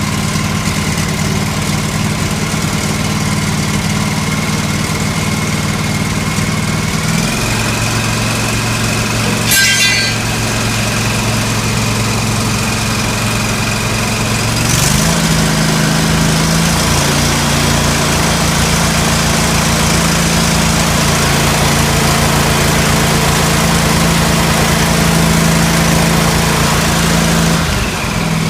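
John Deere L130 lawn tractor engine running steadily, changing speed in steps twice, about a quarter and about halfway through. A short sharp clatter is heard about ten seconds in. It runs again now that its blown 20-amp fuse has been replaced.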